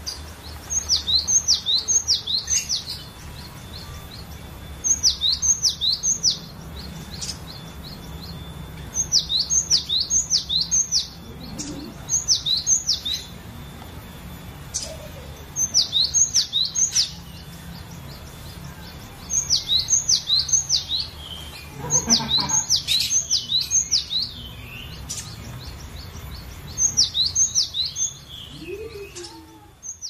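Cinereous tit (glatik batu) singing: about eight bursts of three to six quick, high, down-slurred whistled notes, coming every few seconds. A faint steady low hum runs underneath.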